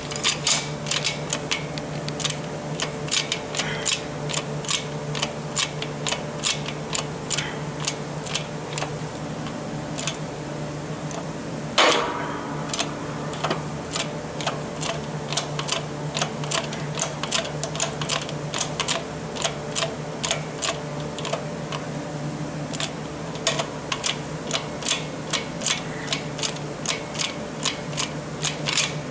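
A press working the old sleeve out of a 4T65E transmission channel plate: a steady run of light metallic clicks, about three a second, over a low steady hum, with one louder metallic clunk about twelve seconds in.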